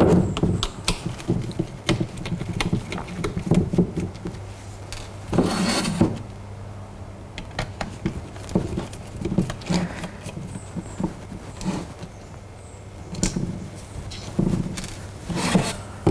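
A screwdriver turning out the small screws that hold the top cover of a Nexcell lithium hybrid battery blade: scattered light clicks, taps and scrapes, with one longer scrape about five and a half seconds in, over a low steady hum.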